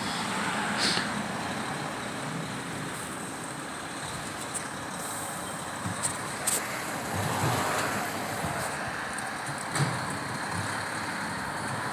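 Strong wind gusting outdoors: a steady rushing noise that swells a couple of times, with a few short clicks or rattles.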